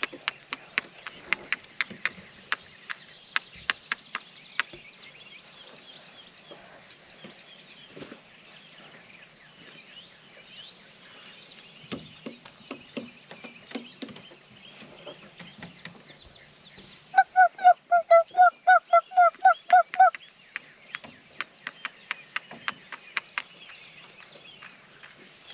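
Young chickens peeping faintly, with many sharp clicks of beaks pecking at food. In the second half a loud run of about a dozen quick honking calls, three or four a second, stands out over them for about three seconds.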